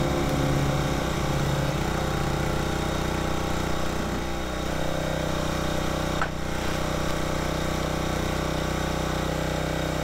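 Brute 35-ton log splitter's Briggs & Stratton 7 hp engine running steadily, with a single sharp knock about six seconds in.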